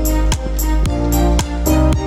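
Background music with a steady beat of about two strokes a second under sustained notes.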